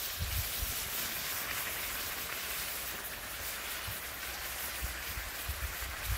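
Hot stone sizzling in water in a birch-bark container, a steady fizzing hiss as the water boils, with a few soft low bumps.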